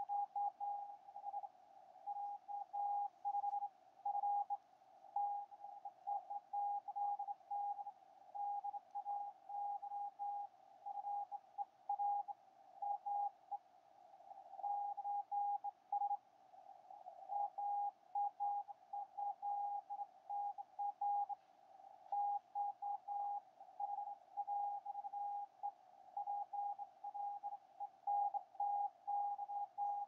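Morse code (CW) received on the 40-metre amateur band through a web software-defined radio in narrow CW mode: a single steady beeping tone keyed on and off in dots and dashes, over faint filtered hiss.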